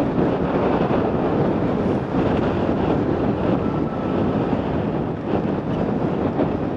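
Wind rushing over the microphone of a moving two-wheeler, with the bike's running noise underneath, at a fairly steady level.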